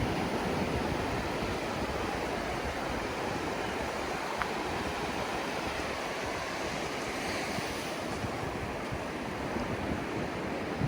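Atlantic Ocean surf washing onto the beach, a steady rushing hiss, with some wind buffeting the microphone.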